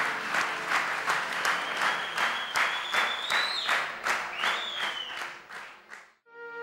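Concert audience clapping in an even rhythm, about four claps a second, with a high tone gliding over it twice; the clapping fades out near the end. Right at the end a bamboo flute starts a held note.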